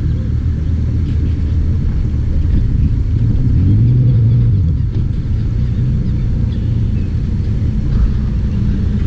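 Bass boat's outboard engine running at idle: a steady low rumble that rises and falls in pitch once about four seconds in.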